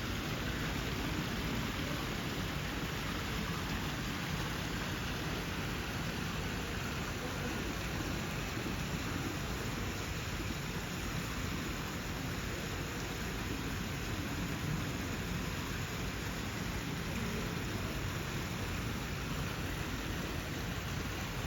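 A steady, even hiss with no distinct events, like falling rain.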